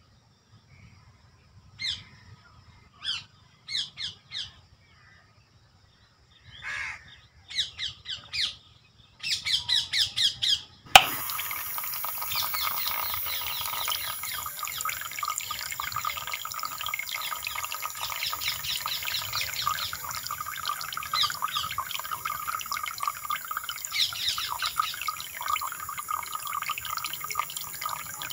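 Short chirps from birds, then a sharp click about eleven seconds in as the switch is thrown. Right after it a small DC-motor water pump runs steadily, pushing a jet of water out of a thin plastic tube to splash onto sand.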